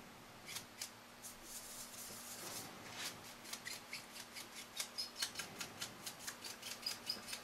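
A 1-inch paint brush scrubbing an oil-paint wash over a model steam locomotive, its bristles rasping across the boiler and running-gear details in quick, faint strokes. The strokes start about half a second in and come about four a second from about three seconds on.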